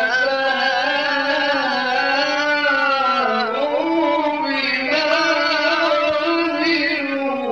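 A man reciting the Quran in the ornamented mujawwad (tajweed) style, holding a long melismatic phrase. His voice dips in pitch about three and a half seconds in, then climbs higher before the phrase ends near the close.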